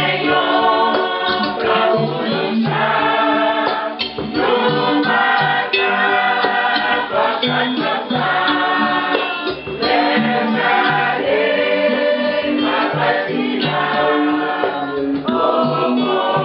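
Church choir singing a hymn with instrumental accompaniment, over a steady repeating bass line.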